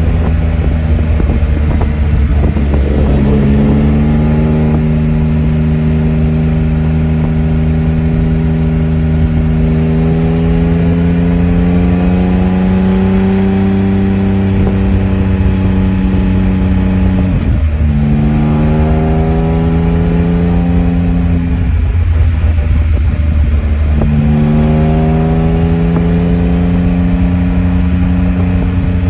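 Can-Am Spyder F3's three-cylinder engine running hard under the rider. Its pitch climbs slowly as it pulls, dips sharply about halfway through and climbs again, then breaks off briefly a few seconds later before rising once more.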